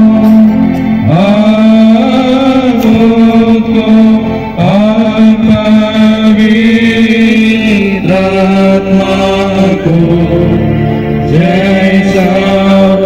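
A Hindi Christian hymn: a voice sings long, held phrases that slide up into each note, over a steady low note that never stops. A new phrase begins about every three and a half seconds.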